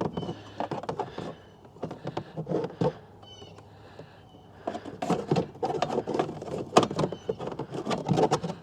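Handling noise from a TV power cable being routed and plugged in: irregular rustling, scraping and sharp clicks, with a couple of brief high squeaks.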